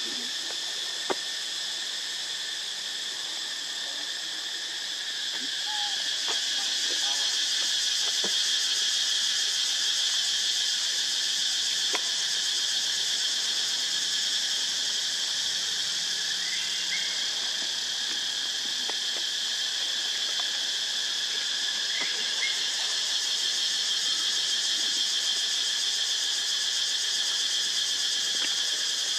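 Steady, shrill buzzing chorus of insects, swelling louder about five seconds in, with a few faint clicks and short chirps now and then.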